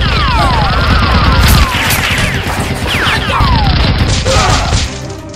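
Dubbed-in movie gunfire sound effects for a Nerf blaster: a dense barrage of shots with several falling whistle-like whines, over background music. The barrage is loudest about a second and a half in and stops just before the end.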